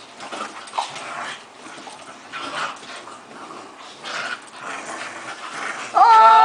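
Two dogs play-fighting, with scuffling and scattered dog noises, then a loud drawn-out call lasting about a second near the end.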